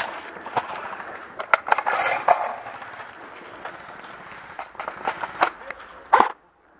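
Irregular sharp clicks, knocks and scuffing as an airsoft player moves through dry leaf litter, his rifle and gear knocking about. The sound cuts off abruptly about six seconds in.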